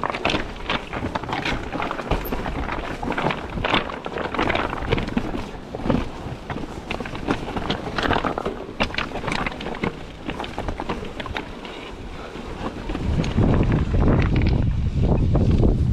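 Orbea Rallon mountain bike clattering over a rough, rocky trail in rapid, irregular knocks and rattles. From about thirteen seconds in, strong wind buffets the microphone with a loud low rumble.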